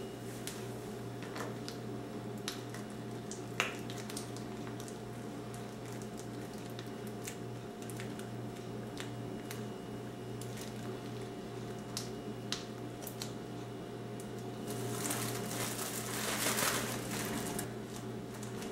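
Soft squishing of thick brigadeiro going into a plastic piping bag, with scattered light clicks. Near the end the plastic bag crinkles loudly as it is lifted and twisted shut. A steady low hum runs underneath.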